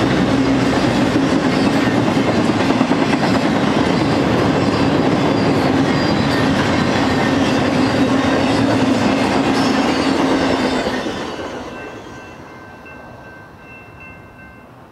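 Freight cars of a BNSF intermodal train, flatcars loaded with highway trailers, rolling past with a loud steady rumble of wheels on rail and a steady hum. About eleven seconds in the last car passes and the sound quickly fades away, leaving a few faint high steady tones.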